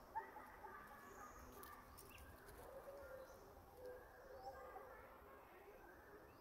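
Near silence: faint outdoor ambience with soft, scattered bird calls and a single sharp click just after the start.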